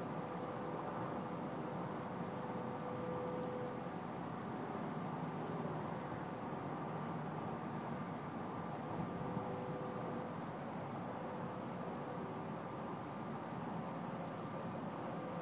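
Cricket chirping: one long trill about five seconds in, then a run of short, evenly spaced chirps, over a steady background noise.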